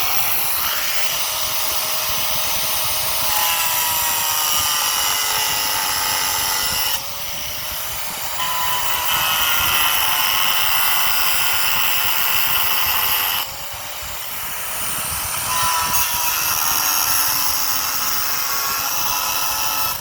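A Craftsman 4.5-inch angle grinder running at full speed, its grinding disc cutting off protruding screw ends with a steady motor whine under the harsh grinding noise. The grinding eases off twice, about seven and about thirteen seconds in, as the disc comes off the metal, then bites again.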